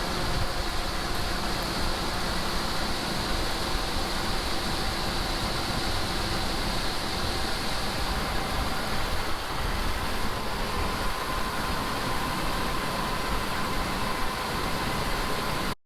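Farm tractor engine running steadily under load, a constant drone with a low hum and a higher hiss. It breaks off abruptly at the very end.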